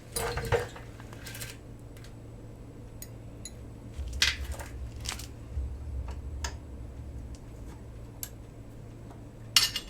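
Metal hand tools clinking and clattering while a motorcycle's rear chain adjuster bolts are worked loose, with scattered sharp metallic clicks and clanks: a cluster at the start, then single ones every second or two.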